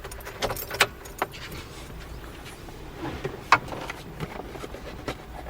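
A few light clicks and rattles, the sharpest about three and a half seconds in, over a low steady hum.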